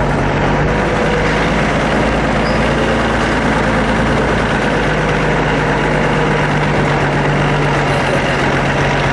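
Off-road vehicle's engine idling with a steady low hum.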